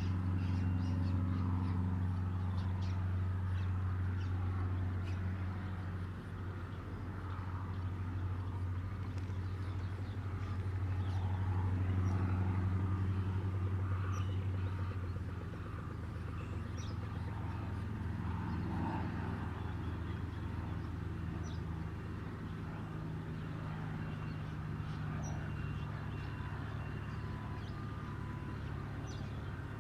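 A steady low engine-like hum, shifting slightly in pitch about halfway through, with scattered short bird chirps above it.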